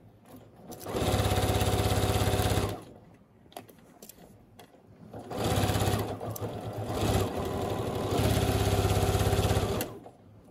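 A computerised Janome Memory Craft sewing machine stitching in three short runs of about one and a half seconds each, stopping between runs, as it sews backwards and forwards to double-stitch over a bag handle.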